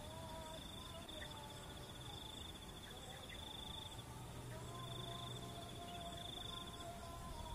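An insect trilling steadily at a high pitch, breaking off briefly about four seconds in and again near the end. Faint distant voices can be heard underneath.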